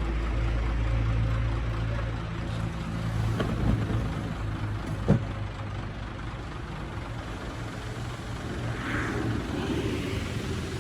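Heavy diesel engine of earthmoving equipment running steadily, with two sharp knocks, the louder one about five seconds in.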